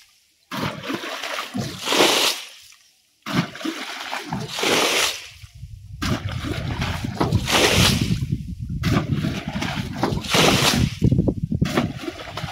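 Water being bailed by hand with a scoop: about four splashes of thrown water, one every two and a half to three seconds. Each swells and then cuts off. Water sloshes low in between.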